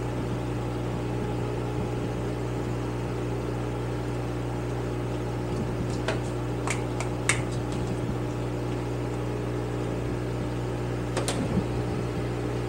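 Steady hum of a running electric fan, with a few light metal clicks as a screwdriver and small parts are handled on a motorcycle carburetor bank, three about six to seven seconds in and one more near the end.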